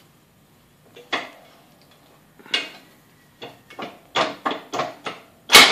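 Ford Model A cast iron brake drum and hub clanking against the steel swedging tool and press bed as they are handled and repositioned by hand: sharp metal knocks, two spaced apart at first, then several in quick succession, with the loudest near the end.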